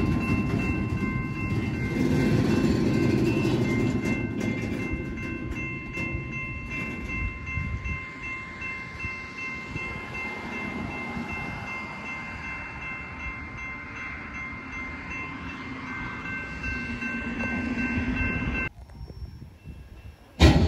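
Freight cars rolling past close by: a dense rumble of wheels on rail with steady high-pitched tones held over it. The sound drops off abruptly near the end, followed by a single sharp bump.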